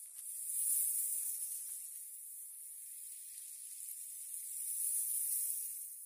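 Small waves washing over a pebble shore: a steady, high hiss of foaming water that swells about a second in and again near the end.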